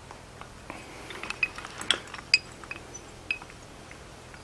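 Irregular light metallic clinks and ticks, steel on steel, about a dozen of them, the sharpest a little past two seconds in, each with a short high ring: a pipe-clamp hold-down and its steel wedge being fitted in the hardy hole of an anvil.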